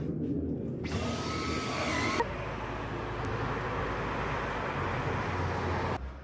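An electric household appliance motor running steadily with a hissing rush. It gets louder with a whine about a second in, shifts to a lower, steadier rush about two seconds in, and cuts off shortly before the end.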